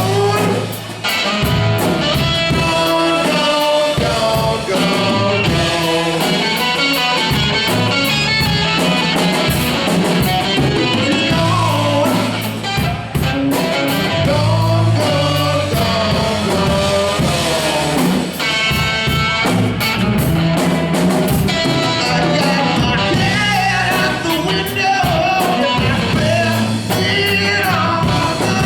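A rock band playing a song, with a singer's voice over the instruments.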